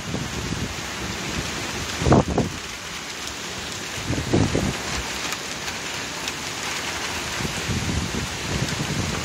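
Rain falling steadily during a thunderstorm, an even hiss, with two brief low thumps about two and four and a half seconds in.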